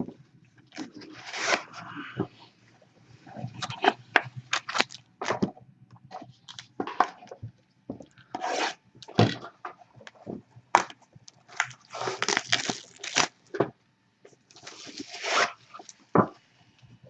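Trading-card box packaging being torn and unwrapped by hand: crinkling, tearing and scraping of wrapping and cardboard in irregular bursts, with sharp clicks and snaps.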